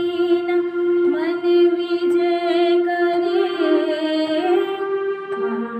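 A woman singing solo in a slow, sustained style, holding long notes with a slight waver and stepping to new pitches every second or so.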